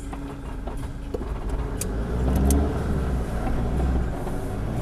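Four-wheel-drive engine pulling slowly under load while climbing over rocks. About two seconds in its revs rise and it gets louder, with a few sharp clicks.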